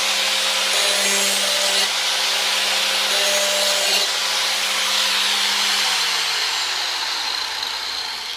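Hand-held electric grinder running with its abrasive wheel against a steel lawn mower blade edge, the grinding noise swelling on forward sharpening passes. About six seconds in the grinder is switched off and its motor winds down, the pitch falling.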